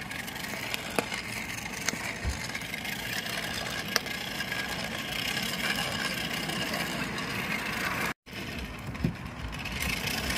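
Hand-cranked blower whirring steadily as it forces air into a charcoal brazier for roasting corn on the cob, with a few light clicks. The sound cuts out very briefly about eight seconds in.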